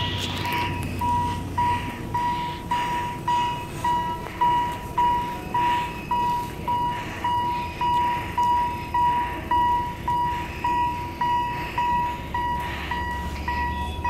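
Level-crossing warning signal ringing in an even repeating electronic ding, about two a second, the sign that a train is approaching the crossing. A low engine rumble comes in near the end.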